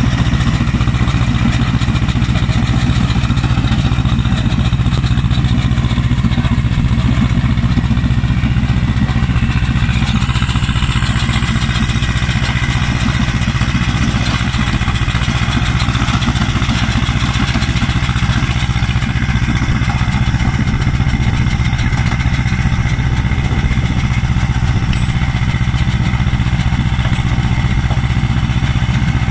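Field stone-crushing machine running steadily as it clears stony ground: a heavy, unbroken engine drone with a dense grinding noise over it that doesn't let up.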